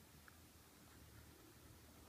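Near silence: faint low background hum, with one very faint short high sound about a quarter of a second in.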